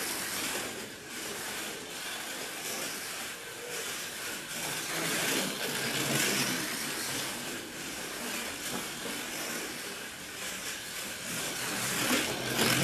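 Slot car running laps at speed: the whine of its small electric motor and the rush of the car in the slot swell and fall as it speeds up and slows for corners. The car carries extra noise that the driver puts down to resonance from the body sitting loose on the chassis.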